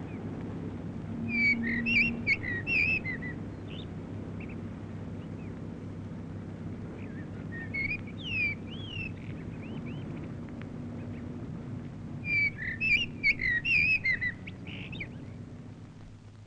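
A songbird singing three quick chirping phrases, spaced several seconds apart, over a steady low rumble of background hum.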